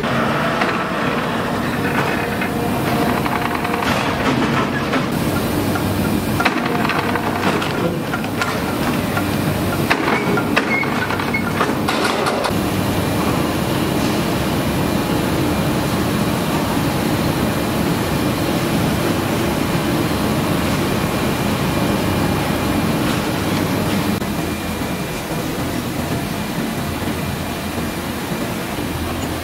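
Steady industrial machinery noise on a metal-processing factory floor, with scattered clanks and knocks through the first twelve seconds or so, then an even drone.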